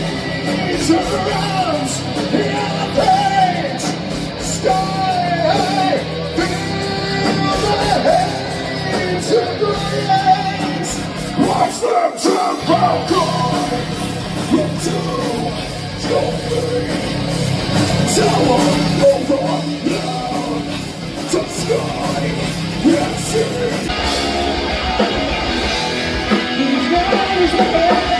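Live heavy rock band playing loud, with electric guitars and sung, shouted vocals. About 24 seconds in, the sound changes abruptly to another band's set.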